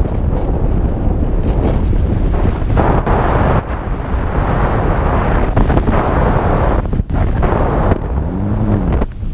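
Loud wind rush buffeting the onboard camera's microphone of a model aeroplane in flight. Near the end a brief tone rises and falls in pitch, such as the plane's electric motor being throttled up and back.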